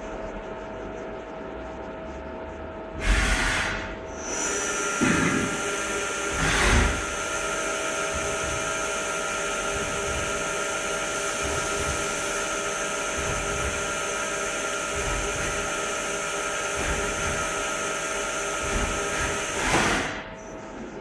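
A Taksan TTC630 CNC lathe running under power, with a steady mechanical whine made of several held tones that shift to a new set about four seconds in. Three short, louder rushing bursts come about three seconds in, near seven seconds, and near the end, as the turret and slides move.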